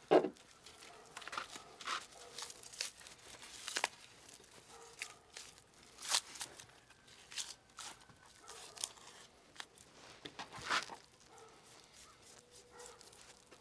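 A long-bladed knife slicing fat and tendon off a raw beef rib roast on a plastic cutting board while a hand peels the fat back: quiet, irregular tearing and scraping, with one short louder sound right at the start.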